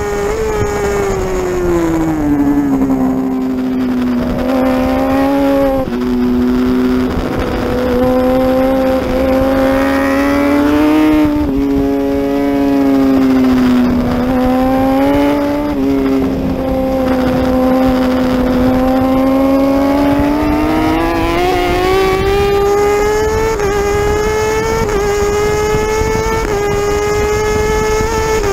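Racing motorcycle engine at high revs, heard from on board over wind rush: the note falls as the rider brakes and downshifts, wavers through the corner, then climbs hard with a run of quick upshifts, each a sharp drop in pitch, up to about 13,000 rpm.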